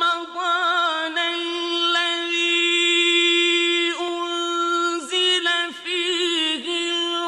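A single voice chanting unaccompanied in an ornamented Middle Eastern style, holding long steady notes broken by wavering runs, with short drops in pitch between phrases.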